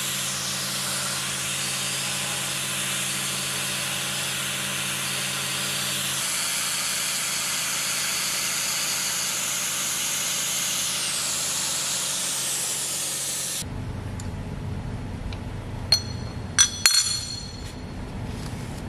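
CNC milling machine cutting an aluminium bracket with an end mill: a steady hiss with faint steady whine lines, and a low hum that drops out about six seconds in. About fourteen seconds in the machining sound stops abruptly, leaving a lower hum with a few sharp metallic clinks.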